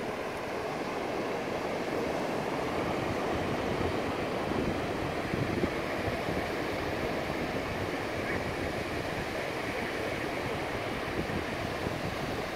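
Ocean surf breaking on a beach, a steady wash of noise, with wind rumbling over the microphone.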